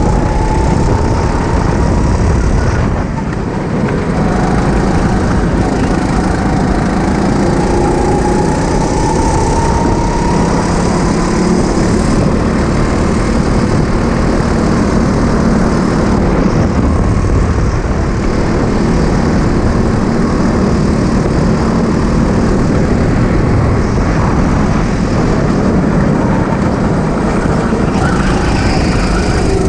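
Go-kart engine running under a steady rush of wind and track noise, its pitch slowly climbing and then falling as the kart speeds up and slows.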